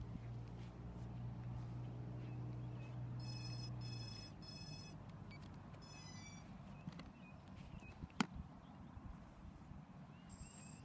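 Three short electronic beeps about half a second apart, then a warbling beep, from a radio-control quadcopter being readied on the ground with its motors not running. A low steady hum stops about four seconds in, and a single sharp click comes near the end.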